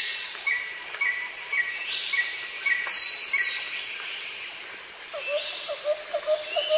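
Nature ambience: a steady high chirring of insects with birds calling over it, a short note repeated about twice a second, a few falling whistles and, near the end, a quick run of lower chirps. It cuts off suddenly at the end.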